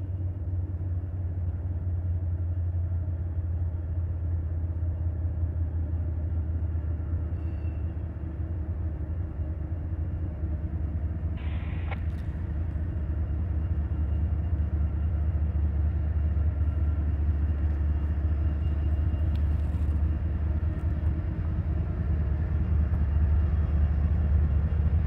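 Diesel locomotives of a Norfolk Southern freight train approaching: a steady low engine rumble that grows louder as the train nears.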